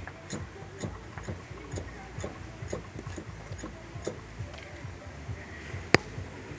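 Worn front ball joint of a Ford Focus 3 knocking as the suspension is worked: light, regular knocks about twice a second, and one sharp, louder click near the end.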